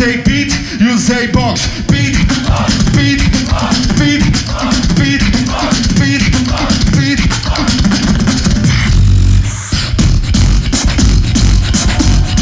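Solo human beatboxing into a handheld microphone through a PA: very fast vocal percussion, dense rapid clicks and snares, layered with pitched vocal lines that slide up and down. About ten seconds in, a deep, heavy bass sound comes in under the beat.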